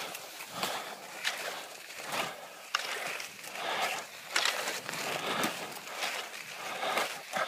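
Cross-country skate skis and poles on groomed snow: a rhythmic series of swishing, scraping strokes, roughly one every half-second to a second.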